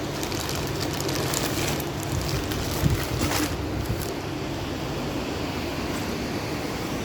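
An engine running steadily with a low hum, with crackly hissing over the first few seconds and a single knock about three seconds in.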